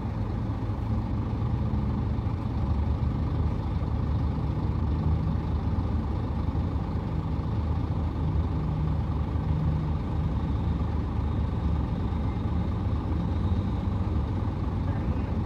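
Steady low rumble of heavy diesel mining machinery: a Komatsu PC1250 hydraulic excavator at work, with a bulldozer running close by.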